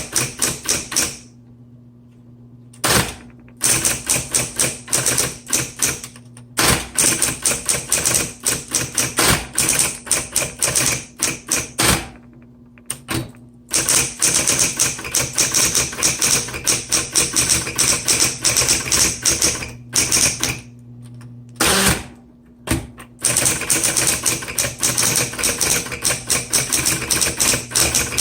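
Smith Corona Coronet Automatic 10 electric typewriter being typed on in rapid bursts of key strikes with a few short pauses, over the steady hum of its running motor. The typing action has a slight squeak.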